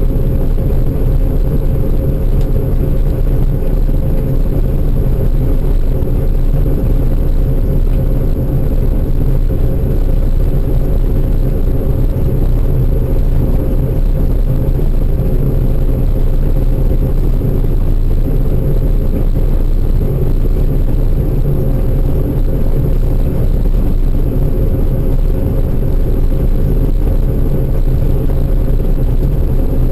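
Farm machinery engine running at a constant speed: a loud, unbroken low drone with a steady whine above it.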